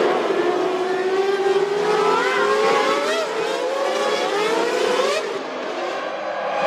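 1998 Formula One car engines at high revs, their pitch rising and falling through the gears. Just past five seconds the sound cuts suddenly to a duller, quieter engine note that then rises again.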